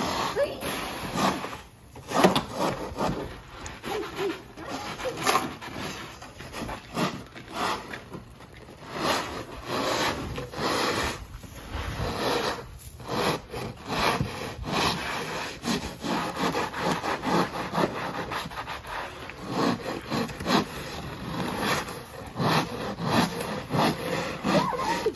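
Plastic ice scrapers scraping ice and snow off a frosted car windshield, in repeated, uneven strokes.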